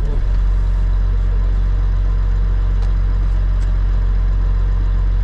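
Tractor diesel engine running steadily, heard from inside the cab, with an even low drone.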